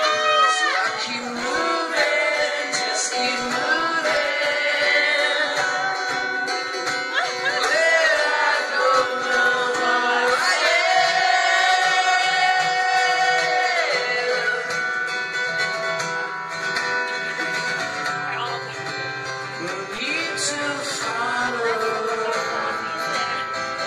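Live solo performance: a man singing while strumming an acoustic guitar, holding one long sung note from about ten to fourteen seconds in.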